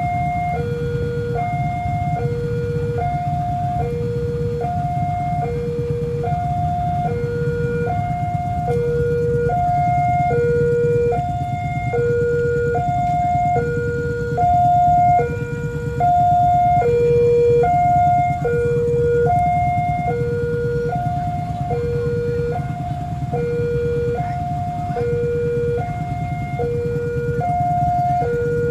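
Indonesian railway level-crossing warning alarm sounding a steady two-tone high-low chime, about one high-low pair a second, which signals that the crossing is closed for an approaching train.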